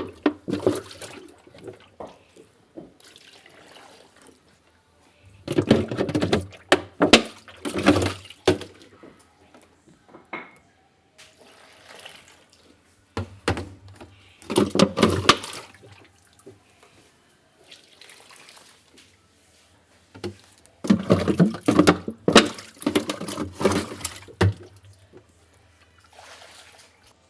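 Water sloshing and splashing in three main bouts of a few seconds each, with quieter gaps between them and a faint low hum beneath.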